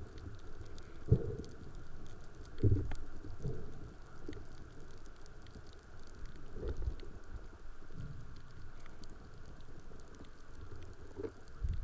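Underwater sound picked up through a diver's camera housing: a low, irregular water rumble with a few dull thumps and faint scattered clicks.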